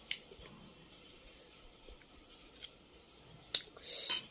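A person chewing and smacking their lips while tasting food. There are faint wet mouth sounds throughout, a sharp click about three and a half seconds in, and a louder smack near the end.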